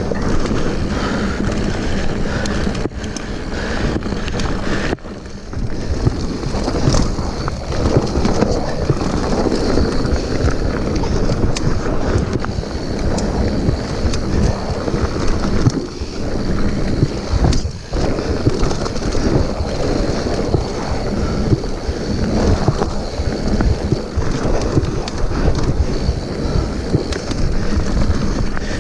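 Mountain bike rolling fast down a rocky dirt trail: steady rumble of the tyres over gravel with constant small rattles and knocks from the bike, under wind buffeting the handlebar-mounted camera's microphone.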